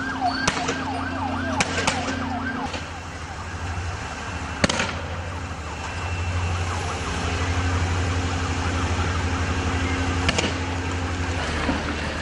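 Police siren wailing in a rapid yelp of about three or four rising-and-falling sweeps a second, over a steady engine hum. It fades after about two and a half seconds and comes back more faintly later. Several sharp bangs cut through, the loudest a little under five seconds in.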